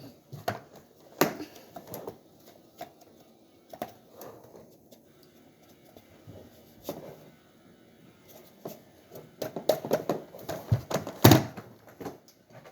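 Scattered knocks and clicks, with a denser run of thumps about ten seconds in.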